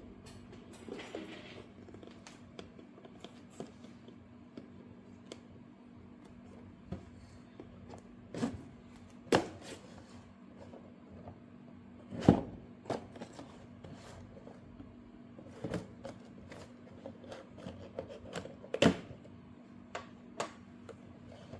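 Cardboard toy box being handled and opened: scattered scrapes, clicks and knocks of the packaging, with a few louder thumps, over a faint steady hum.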